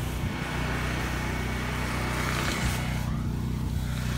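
Portable generator's engine running steadily, a constant low drone.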